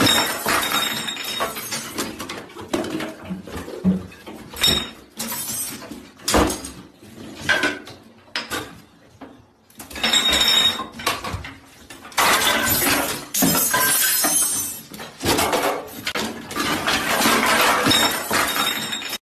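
Repeated crashing and clattering of hard objects, coming in loud bursts with quieter lulls between.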